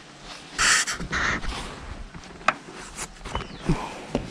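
Hand work on a car's plastic interior trim: two short harsh rasping sounds about a second in, then scattered sharp clicks and knocks as the trim and its retaining pins are worked loose.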